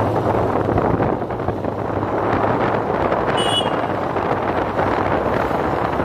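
Wind buffeting the microphone over the low, steady hum of a moving vehicle's engine and road noise, with a brief high tone about three and a half seconds in.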